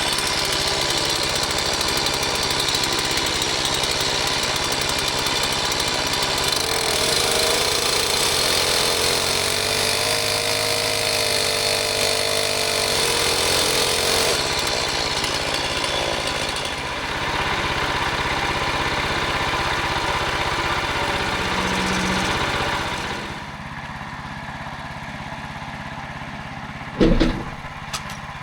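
Portable sawmill running: its engine works under load and the pitch wavers in the middle. About twenty-three seconds in, the sound drops to a quieter run, and a single sharp knock comes near the end.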